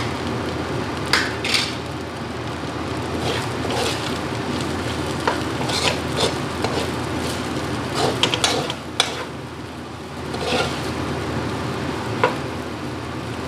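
Fried rice being stir-fried in a metal wok: a spatula scrapes and knocks against the pan at irregular intervals over a steady sizzle.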